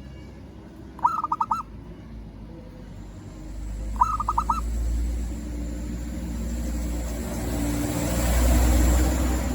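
Zebra dove (perkutut) giving two short bursts of quick cooing notes, about a second in and again about four seconds in. A vehicle rumble then builds and is loudest near the end.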